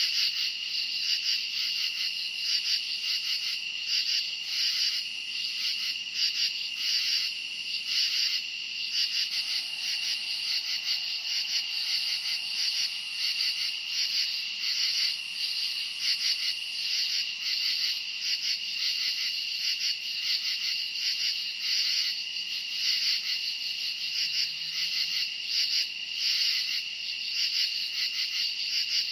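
Night chorus of crickets chirping: one steady high trill underneath, with many other calls pulsing over it without a break.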